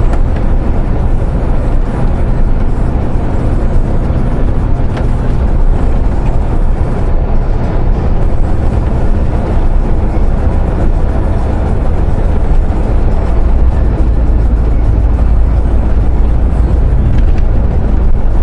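Steady drone of a MAN truck's engine and road noise heard inside the cab while driving at an even speed, deepest and loudest in the low rumble.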